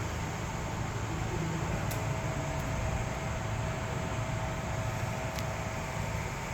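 Steady mechanical hum and hiss with a faint constant whine. Two light clicks come about two seconds in and again near the end.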